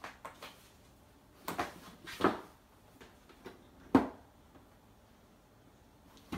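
A kitten playing on a wooden floor against a cardboard box: a few scattered knocks and scuffles, the sharpest knock about four seconds in.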